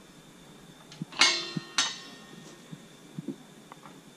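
Hands handling the plastic damper-motor parts and drive belt inside a galvanized sheet-metal zone damper: light clicks and two sharp, ringing metallic knocks, one just over a second in and another about half a second later.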